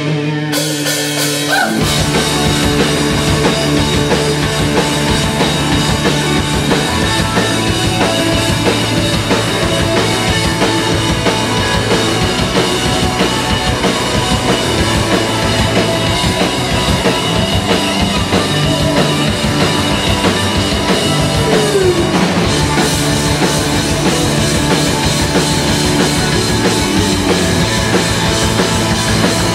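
Live punk rock band playing loudly: distorted electric guitars, bass guitar and drum kit. A guitar sounds on its own for about the first two seconds before the full band comes in.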